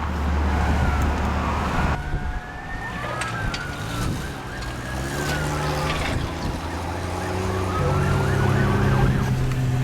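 Siren wailing, its pitch rising and falling slowly, over the steady low hum of a vehicle.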